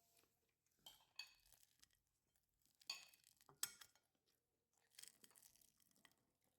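Dishes and cutlery clinking: a handful of short, sharp clinks spread out, the sharpest about three and a half seconds in.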